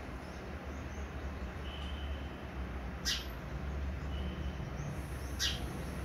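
House sparrow giving two short, sharp chirps about two and a half seconds apart, each sweeping quickly down in pitch, over a steady low hum.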